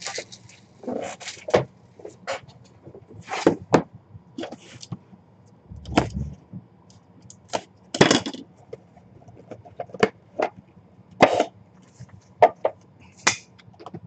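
A cardboard box being handled and opened, with a hard plastic puck display cube taken out. Irregular taps, knocks and short scrapes of cardboard and plastic come every half second to a second or so.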